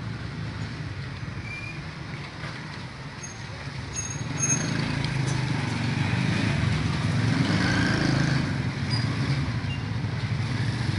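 Small motorcycle engines of mototaxis (motorcycle-driven three-wheeled taxis) running as they pass close by. The hum gets louder about four seconds in.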